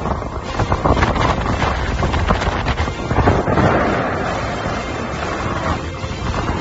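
Wind buffeting the microphone in gusts, a rough rumbling noise with no steady pitch.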